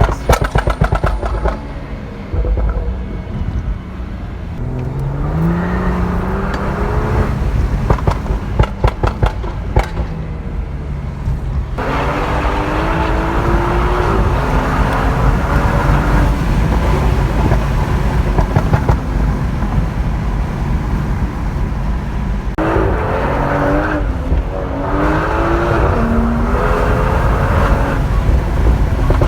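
A BMW 340i's turbocharged straight-six on a Stage 2 tune with a crackle map, driven hard. The engine pitch climbs and then drops back several times as it revs and changes gear. Volleys of exhaust crackles and pops come right at the start and again about a third of the way in.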